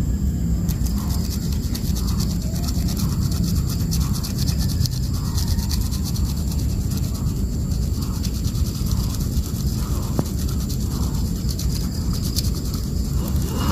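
Wooden hand-drill spindle spun back and forth between the palms against a wooden fireboard: fast, scratchy wood-on-wood rubbing as friction heats the wood toward an ember. A steady low rumble runs underneath.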